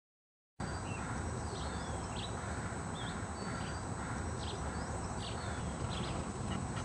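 Birds chirping in short, quick calls over a steady low rumble of outdoor ambience, with a thin steady high tone; it all starts about half a second in.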